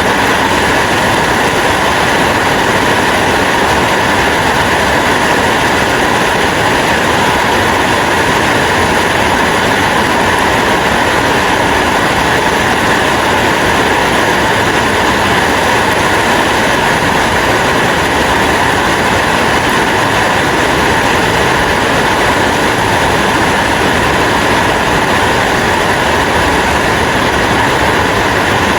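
Rain falling steadily: an even hiss that does not change.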